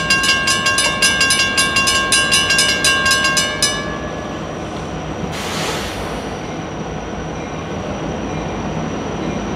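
Railroad grade-crossing warning bells ringing rapidly, about four to five strikes a second, then stopping about four seconds in once the gates are down. After that comes a steady low rumble from approaching diesel freight locomotives, with a brief hiss about five and a half seconds in.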